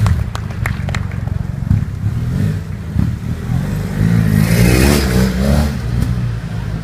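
BMW adventure motorcycle engine revving in short blips as the bike is ridden through tight turns, with a longer rev that rises and falls in pitch about four to five and a half seconds in.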